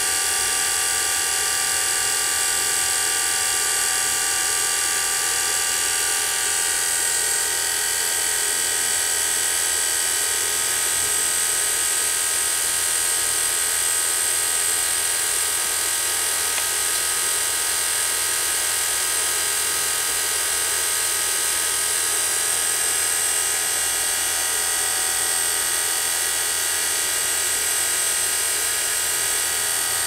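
Refrigeration vacuum pump running steadily with a constant mechanical whine, evacuating the air conditioner's refrigerant circuit.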